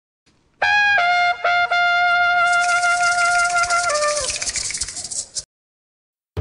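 Short trumpet jingle: a few quick notes, then one long held note that steps down and slides down near the end, with a rattle joining in about halfway. It cuts off suddenly about five seconds in.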